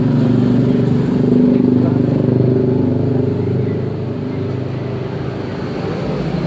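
A motor vehicle engine running, growing louder about a second in and easing off after about four seconds.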